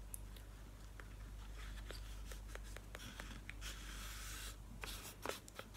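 Faint rustling and crinkling of crepe paper against a cardboard milk carton as a hand presses the paper onto its glued inside, with scattered small clicks. The rustles grow louder in the second half.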